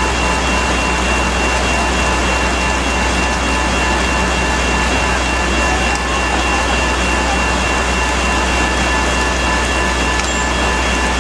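Steady noise of heavy rain over the low, even hum of idling vehicle engines, with a few thin, steady whistling tones on top.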